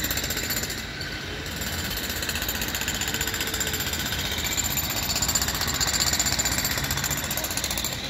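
A jackhammer breaking up a road surface, a rapid, steady hammering that eases briefly about a second in.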